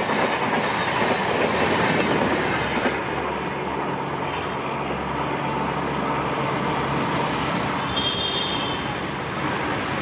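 Indian Railways passenger train of LHB coaches passing, wheels rolling on the rails with a clickety-clack. It is loudest for the first three seconds, then settles into a steadier, quieter rumble, with a brief high tone near the end.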